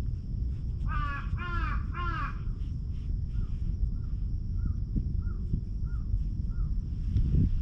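A crow cawing three times in quick succession, each caw short and arched, followed by a faint small call repeated six times at an even pace, over a steady low rumble.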